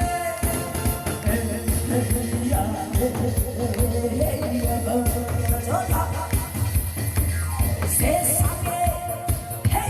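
A song playing: a steady, even drum beat under a melody line.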